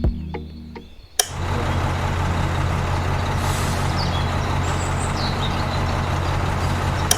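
A machine starts with a click about a second in and runs steadily with a low hum and a loud rushing noise, then cuts off suddenly near the end.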